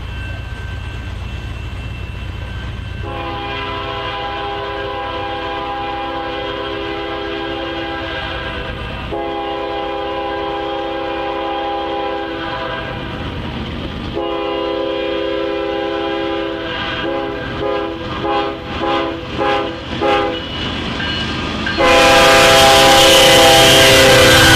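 Approaching BNSF diesel locomotives sounding a multi-note air horn over the low rumble of their engines: three long blasts, then a quick run of short toots. Near the end the lead units pass close, and the level jumps suddenly to a loud rush of engine and wheel noise with the horn still sounding.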